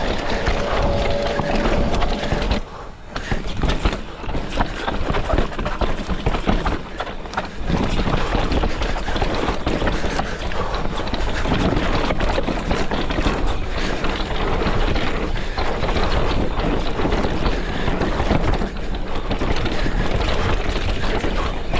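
Scott Ransom full-suspension mountain bike descending a rocky trail: wind rushing over the camera microphone, with the tyres crunching over rock and the bike rattling and clacking over the bumps. There is a brief lull about three seconds in.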